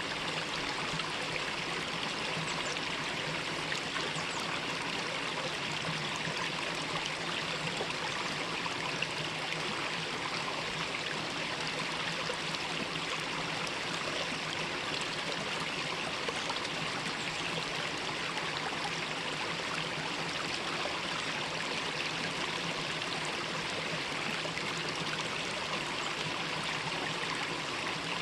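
Mountain valley stream flowing, a steady, unbroken rush of water.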